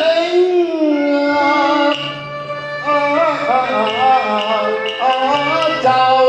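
Cantonese opera music: an ornamented melody with sliding, wavering pitches over held low notes.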